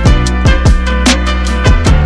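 Background music with a steady drum beat: deep kick drum hits that drop in pitch, sharp cymbal or snare strikes, and sustained bass notes.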